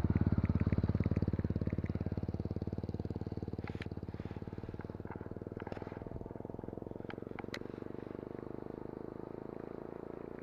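Baitcasting reel being cranked, retrieving line with a steady, fast low whir that eases slightly after the first few seconds.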